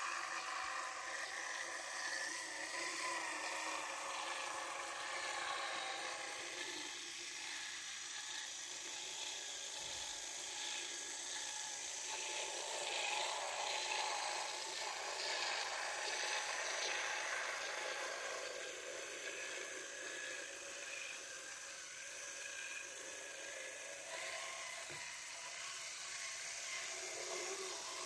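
Small electric motor and gearing of an H0f model narrow-gauge locomotive whirring as it runs along the track, a faint whine that wavers in pitch.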